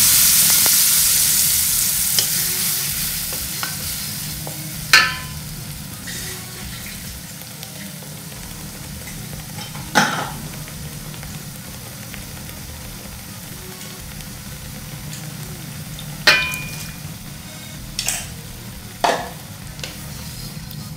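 Blended chilli-and-spice paste sizzling in hot oil in an aluminium wok: loud at first as it has just gone into the oil, fading over the first few seconds to a steady fry. A wooden spatula stirring it knocks against the wok five times.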